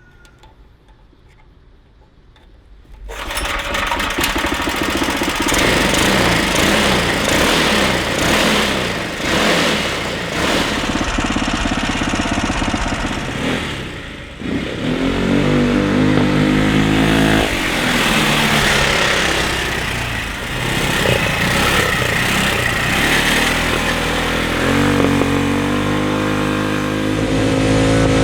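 Stage 2 Predator 420cc single-cylinder engine on a home-built ATV, exhausting through a 2014 Mustang 5.0 muffler, comes in loud about three seconds in and then revs up and down repeatedly under throttle. It stays loud even through the car muffler.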